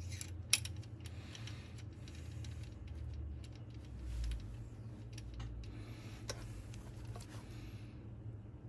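Small metallic clicks and clinks at irregular intervals as a steel rocker arm is fitted onto a rocker shaft and set up on a test jig, over a steady low hum.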